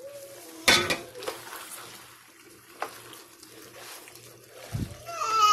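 Cooked rigatoni being tipped and scraped from a metal pot into a pan of sauce, with a sharp clank of pot on pan about a second in and a few lighter knocks. Near the end, a toddler starts to cry.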